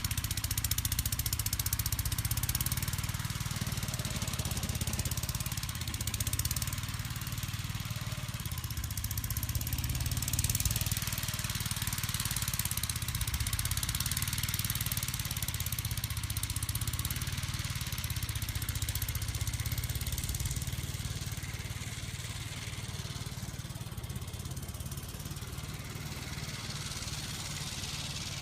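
1959 Gravely Model L walk-behind tractor's single-cylinder engine running steadily while driving its snow blower attachment, with an even hiss over the engine sound.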